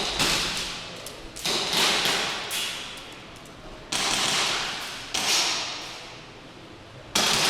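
Airsoft guns firing: about five sudden shots or short bursts, about a second apart or more. Each one echoes and dies away over roughly a second.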